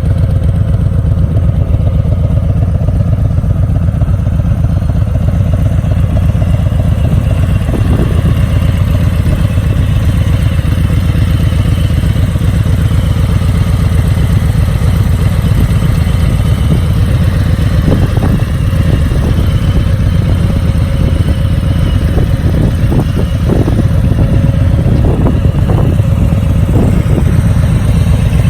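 Harley-Davidson Breakout's V-twin engine idling steadily through its exhaust, with a few short clicks or knocks in the second half.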